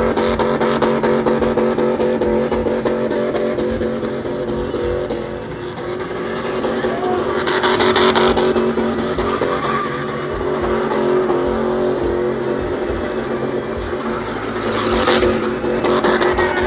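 Car engine held at high, steady revs during a burnout, with tyre noise over it and a louder stretch of hiss about halfway through.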